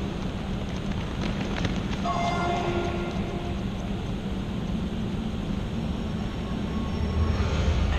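Many runners' footsteps and shoe squeaks during a shuttle-run beep test, over a steady low hum.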